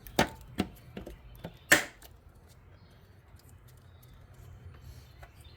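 A few sharp plastic clicks and knocks, the loudest about 1.7 seconds in, as the bulb socket and wiring are pushed back into the rear tail-lamp housing.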